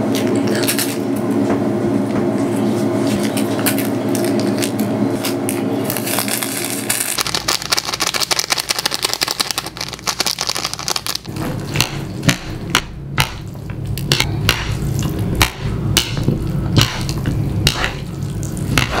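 A seasoning packet is torn open and crinkled by hand. Over the last several seconds, chopsticks tap and scrape against a ceramic noodle bowl in a rapid run of clicks as instant noodles are mixed.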